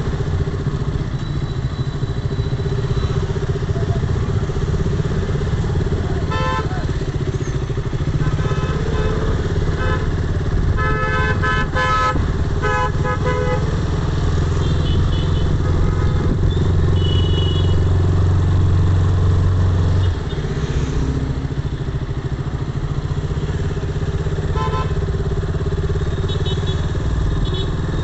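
Motorbike engine running steadily while riding slowly through congested traffic; its drone swells and then eases off sharply about twenty seconds in. Vehicle horns honk in short blasts several times, most of them around eleven to thirteen seconds in.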